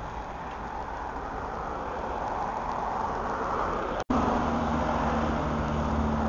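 Suburban electric train approaching the station, its rumble growing steadily louder. About four seconds in the sound cuts off briefly, then a louder steady low hum with a droning tone takes over.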